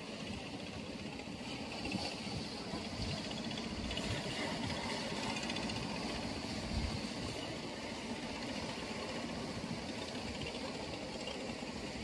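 Boat engine running steadily, with a steady hiss of water and wind underneath.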